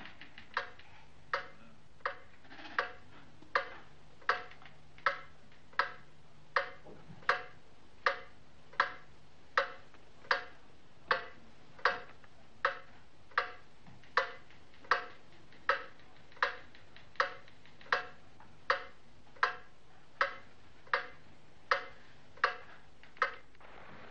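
Clock ticking steadily, about four ticks every three seconds, over a faint low hum; the ticking stops shortly before the end.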